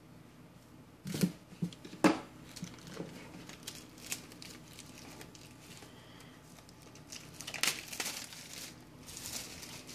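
Plastic shrink-wrap crinkling and tearing as it is pulled off a Blu-ray case. Two sharp clicks come about one and two seconds in, and a longer run of crinkling comes near the end.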